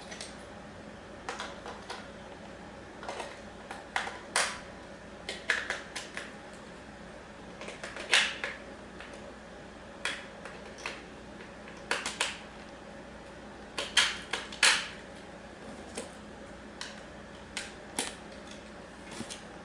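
Irregular plastic clicks and snaps as AA batteries are loaded into a Sky Viper v2900 Pro drone's radio controller and its battery compartment is handled, with the sharpest snaps about eight seconds in and again around fourteen seconds.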